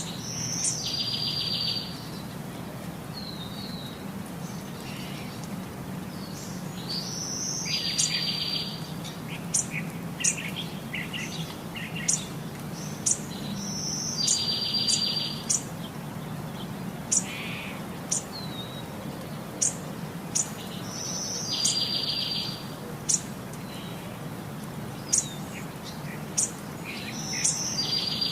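Birdsong: one bird repeats the same phrase five times, about every seven seconds, a short high note followed by a buzzy trill lasting about a second, with many brief sharp chirps from other birds in between.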